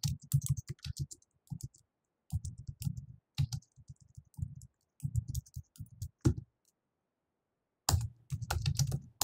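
Typing on a computer keyboard in quick bursts of keystrokes. There is a pause of about a second near the end before the typing picks up again.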